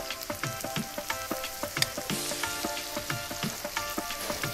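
Taro cubes frying in hot mustard oil in a pan: a steady sizzle with frequent small crackles and pops.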